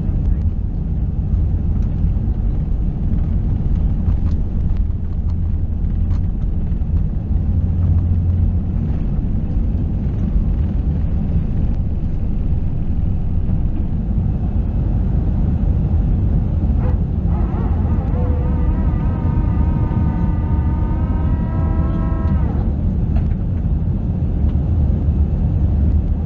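Airbus A320 engines and airframe heard from inside the cabin: a loud, steady low rumble. About two-thirds of the way through, a pitched whine rises, holds for a few seconds, then cuts off suddenly.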